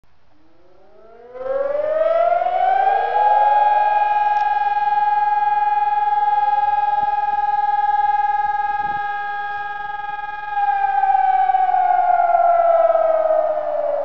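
PAVIAN 1200 electronic civil-defence siren sounding the "Probe" test signal. It starts about a second in, its tone rising over about two seconds to a steady pitch, holds it, and begins to fall about ten seconds in. A second nearby siren joins a few seconds later, offset in time.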